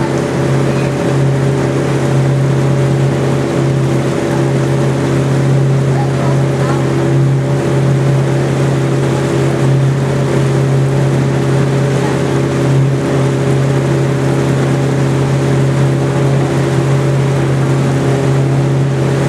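Boat engine running steadily under way, a constant low hum with the rush of water and wind over it.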